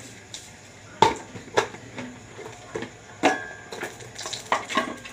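Mustard oil sizzling faintly in a metal karahi around a few whole cumin seeds and a bay leaf. Over it come several sharp knocks and clinks of containers being set down on the counter, the loudest about a second in and a cluster near the end.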